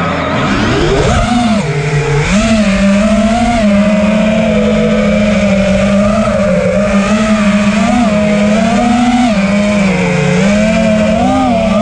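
FPV freestyle quadcopter's brushless motors and propellers buzzing in flight, the pitch rising and falling with the throttle, with a brief drop in pitch about two seconds in.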